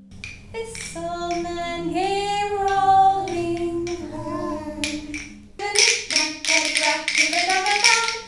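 A woman singing, joined about two-thirds of the way through by wooden rhythm sticks tapped in a steady beat under the song.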